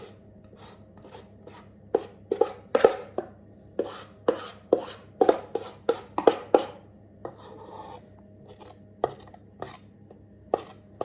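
A spoon knocking and scraping against a mixing bowl and cake tin while scooping chocolate cake batter into the tin: a string of irregular sharp knocks, about two a second, with a short scrape about three-quarters of the way through.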